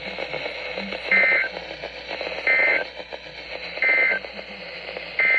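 NOAA Weather Radio KDO94 EAS/SAME data tones heard through a radio receiver. Three short two-tone digital squawks come about 1.3 s apart, the end-of-message code closing the tornado warning. A longer burst starts near the end: the header of the next alert beginning.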